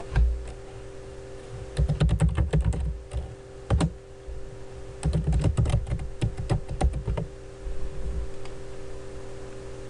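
Typing on a computer keyboard in two quick bursts, one about two seconds in and another about five seconds in, with a steady low hum underneath.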